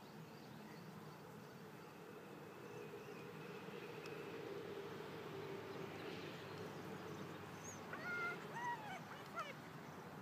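A puppy gives a few short, high whines about eight to nine and a half seconds in, over a faint steady background hum.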